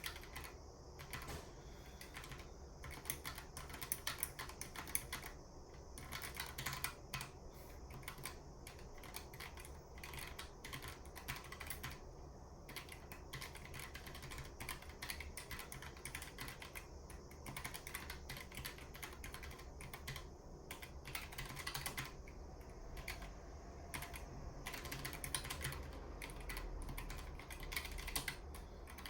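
Typing on a Keychron K1 low-profile mechanical keyboard with red linear switches: a continuous, irregular run of key clicks with short pauses.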